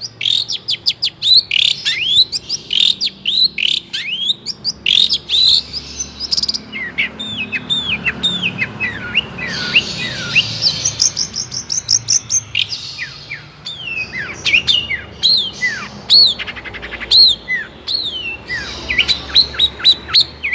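Long-tailed shrike (cendet) singing a long, varied song of rapid high chirps and quick downward-sliding notes, with only brief breaks.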